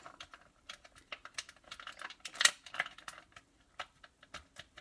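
Clear plastic blister packaging crackling and clicking as fingers flex and peel it open. An irregular run of sharp crinkles, loudest about two and a half seconds in.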